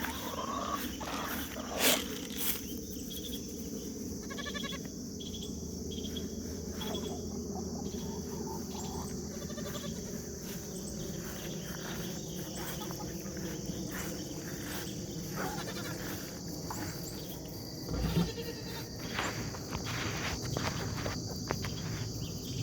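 Goats bleating now and then over a steady chirring of insects, with a few brief knocks.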